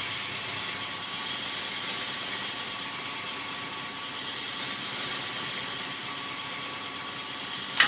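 Cylinder honing machine running its stones in a bore of a Perkins 248 diesel engine block: a steady grinding hiss with a high-pitched whine, stopping suddenly at the end. This is a light finishing pass with little pressure on the stones, taking off a fraction of a thou.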